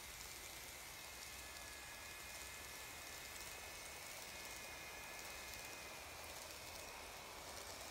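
N gauge model trains running on sectional track: a faint, steady hiss with a thin, high whine that weakens about halfway through.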